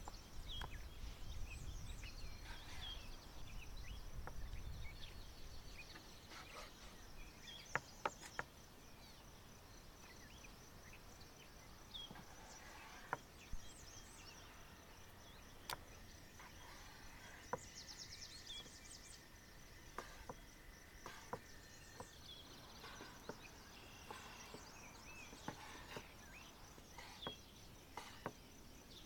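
Faint outdoor ambience: scattered bird chirps and a few sharp clicks over a quiet background, with a low rumble for the first few seconds.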